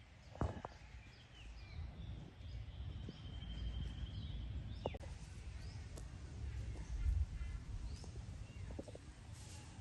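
Small birds chirping, with a rapid high trill lasting a couple of seconds in the middle, over a low rumble and a few sharp clicks.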